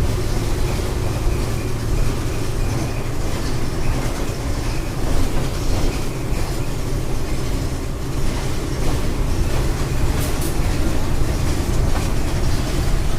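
Volkswagen Volksbus 17.230 EOD city bus on the move, heard from inside the passenger cabin: a steady diesel rumble with road noise, and a brief high squeak about ten seconds in.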